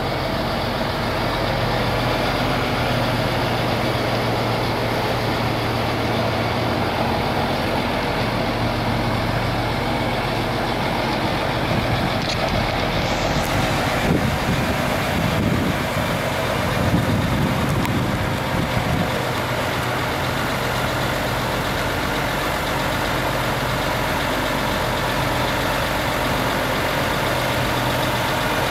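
Diesel engine of a Mercedes-Benz 3241 8x4 concrete mixer truck running steadily as the truck drives slowly along, with a few louder surges of engine noise a little past the middle.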